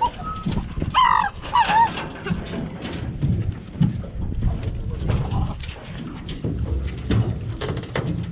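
Hunting dogs giving a couple of short, excited yelps about a second in as they are let off the boat, then irregular knocks and clatter on the aluminium boat over a low rumble.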